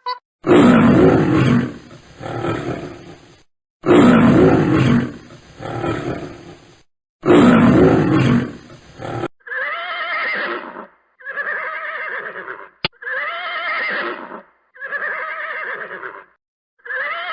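A lion's roar, the same recording played three times in a row, each a long loud roar followed by a lower trailing grunt. This is followed by five short, pitched, wavering animal calls about a second apart.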